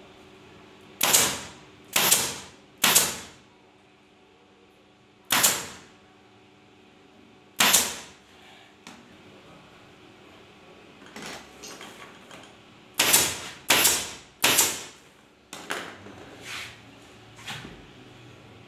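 Staple gun firing staples through upholstery fabric into a wooden bed frame: about eight loud, sharp shots at irregular spacing, each with a short trailing hiss, and several fainter clicks among them in the second half.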